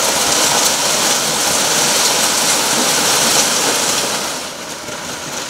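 A loud, steady rushing hiss with no distinct events, easing off a little near the end.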